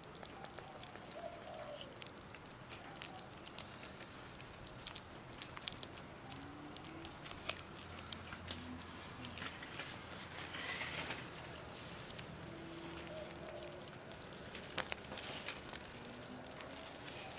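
Pet rats chewing a moth, with irregular small crunches and sharp clicks from the teeth and wings.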